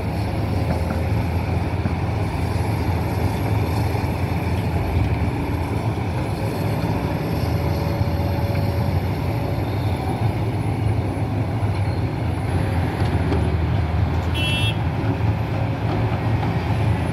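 Diesel engines of a Hidromek 410LC and a Sumitomo SH370 hydraulic excavator running steadily under load as they dig and load a dump truck, a continuous low drone. A brief high beep about 14 seconds in.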